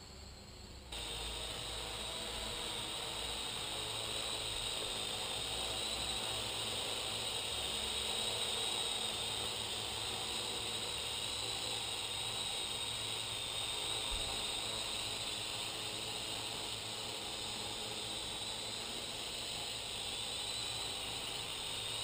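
Parrot AR.Drone 2.0 quadcopter's four electric rotors running steadily as it hovers and flies low: a high whine that wavers a little in pitch over a rushing hiss. It starts abruptly about a second in.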